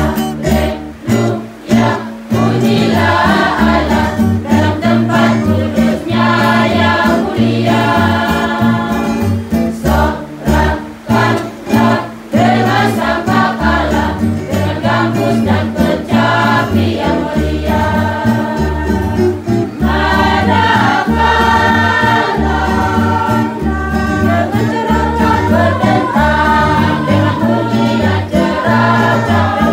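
Church choir singing a hymn to a strummed acoustic guitar. The voices come in a couple of seconds in, after a short guitar lead-in, over steady low bass notes.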